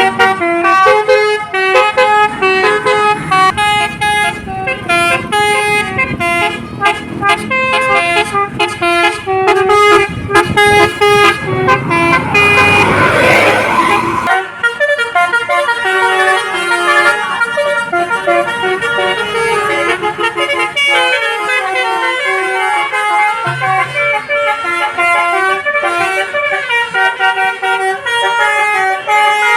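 Bus 'telolet' musical horns playing quick melodic tunes, one note after another. Under the first half an engine rumble, with a loud rushing noise about twelve seconds in; the rumble drops away suddenly about two seconds later.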